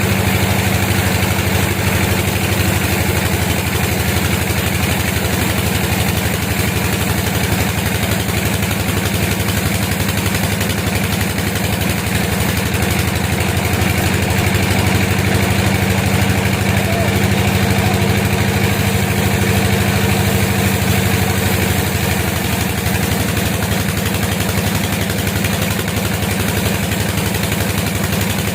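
Sawmill engine running steadily at a constant speed, a continuous even drone.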